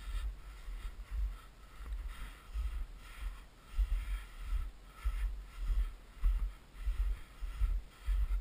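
Footsteps crunching in snow at about two steps a second, each step a dull thump, with wind rumbling on the microphone.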